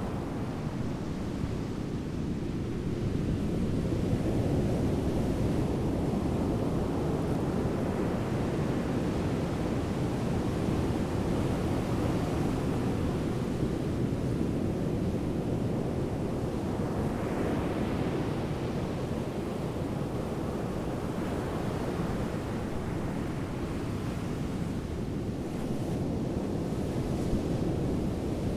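Sandstorm wind blowing hard across a ship at sea and buffeting the microphone, over rough water: a steady deep rushing that swells a little about four seconds in and again near the end.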